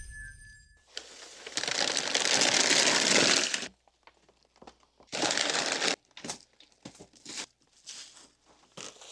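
Plastic bags and packaging crinkling loudly for a few seconds as they are crammed into a trash bin. Then comes a shorter crinkle and scattered light knocks as empty plastic filament spools are dropped into a bag-lined bin.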